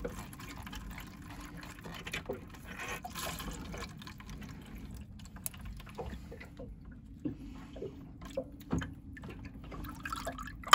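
Diesel trickling and dripping from the primary fuel filter bowl into a container below as the filter is drained, with a few light clicks from handling the fittings.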